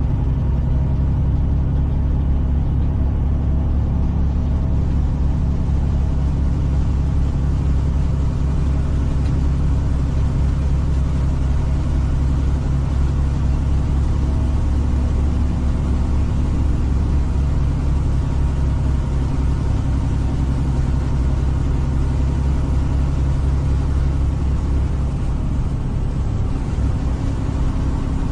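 Semi-truck engine running with road noise, heard from inside the cab while cruising on a highway: a steady low drone whose pitch shifts slightly near the end.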